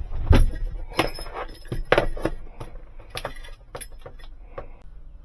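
Keys and small metal parts being handled: an irregular run of clinks, clicks and knocks that thins out and dies away near the end.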